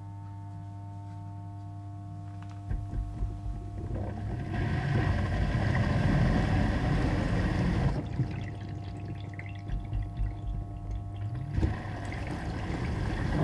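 Dishwasher starting a cycle: a steady hum with fixed tones, then from about three seconds in water sloshing and spraying inside the tub. The spraying comes in two louder spells with a quieter, uneven stretch between them.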